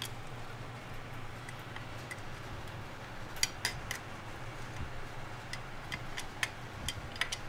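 A few scattered metallic clicks and light taps as a T-handle driver is set on and turned on the clutch cover bolts, tightening them down snug. A low steady hum runs underneath.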